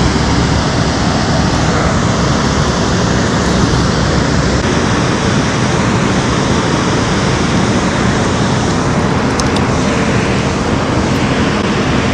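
Steady, loud rush of water pouring out below a dam, unbroken throughout.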